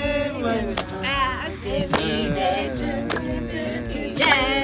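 Voices singing a traditional Ugandan coffee-pounding song unaccompanied, with a few sharp knocks now and then.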